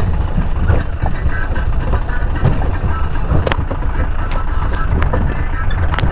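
Jeep driving over a rough off-road track: low engine rumble with rattles and knocks from the bumpy ride.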